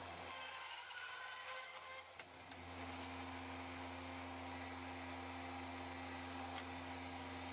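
Faint steady machine hum, with a few light knocks around two seconds in.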